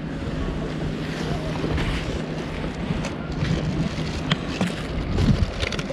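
Wind buffeting the microphone over the sea, with a steady wash of water below and a faint low hum underneath; a few small clicks near the end.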